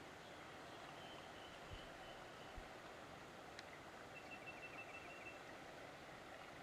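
Faint outdoor quiet with a steady low hiss, broken by high, thin bird calls: a short string of notes about a second in and a quick, rapid trill in the middle. A single sharp click and two soft low knocks come in between.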